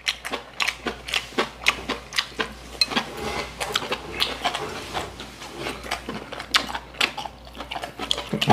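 Metal chopsticks clicking and tapping against ceramic bowls while noodles are eaten, with chewing noises; many short, sharp clicks, a few each second.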